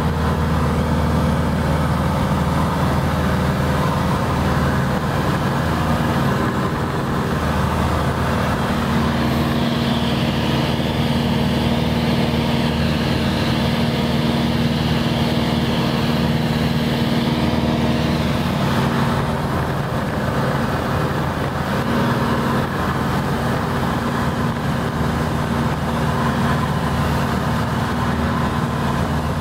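Cessna 180's six-cylinder Continental O-470 engine and propeller running at cruise power, a loud, steady drone heard inside the cabin, mixed with airflow noise. The tone shifts slightly about two-thirds of the way through.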